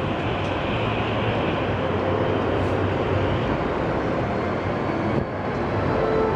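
Steady, even background noise of a large open hall, with a short knock about five seconds in.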